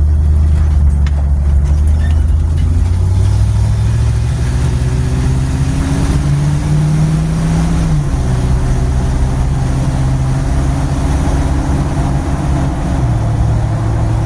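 Car engine accelerating, its pitch climbing for several seconds, dropping suddenly about eight seconds in as the transmission shifts up, then holding steady with a second small drop near the end. Heard from inside a stripped cabin with bare floor pans and no interior, so the engine and road noise are loud.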